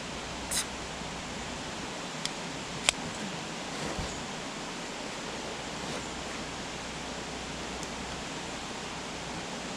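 Steady, even rushing of flowing water, with a couple of faint short clicks in the first few seconds.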